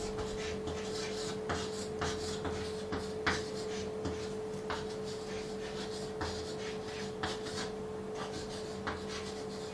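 Chalk scratching and tapping on a blackboard as a line of words is handwritten, in short irregular strokes, over a steady low hum.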